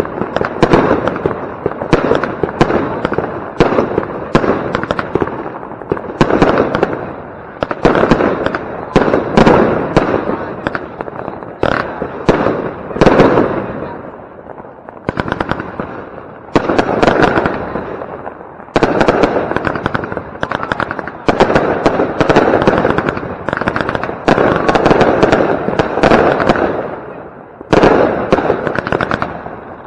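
Consumer firework batteries (cakes) firing shot after shot: a dense, nearly continuous run of launches and bangs with crackle, easing briefly only a couple of times.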